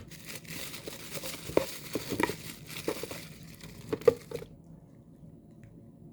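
Packaging crinkling and rustling as items are handled and pulled out of a shipping box, with scattered sharp crackles; it stops about four and a half seconds in.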